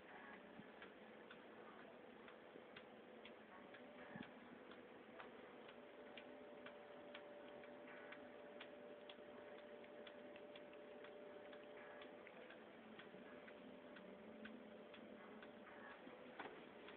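Near silence with faint, uneven ticking, a few ticks a second, over a low hiss and a faint steady hum.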